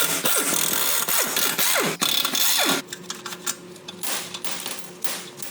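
A power tool running loudly in bursts, its pitch sliding as the speed changes, stopping about three seconds in. Quieter clattering of tools and parts follows.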